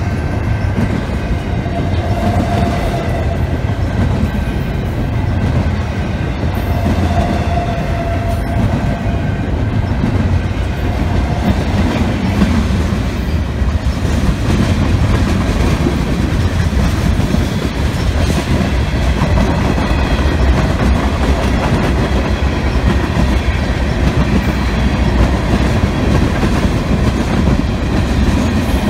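Mixed freight train rolling past at close range: a steady, loud rumble and rattle of freight car wheels on the rails.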